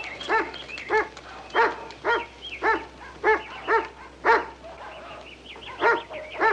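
A dog barking over and over, short barks about two a second, with a brief pause a little past the middle.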